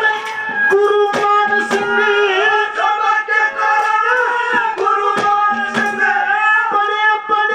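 Live Haryanvi ragni music: a wavering, bending melody line held over scattered drum strokes.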